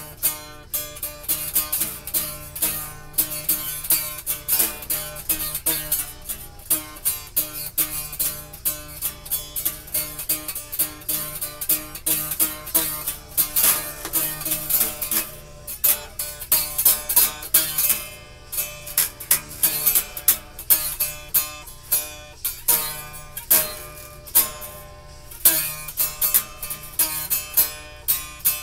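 Acoustic guitar being played, its strings plucked in a quick run of ringing notes, several a second.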